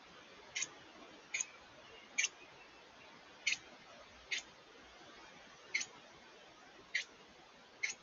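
Carolina wren giving short, sharp chip notes, about one a second, eight in all.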